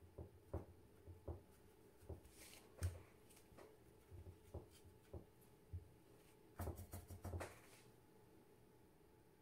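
Faint scattered taps and light rustles of a watercolour brush and paper tissue being handled, with a short flurry of them about seven seconds in, over a low steady room hum.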